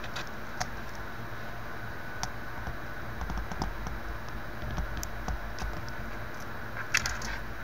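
Scattered light clicks and taps of metal tweezers handling a small surface-mount component against a circuit board, over a steady low background hum. A short cluster of clicks about seven seconds in is the loudest.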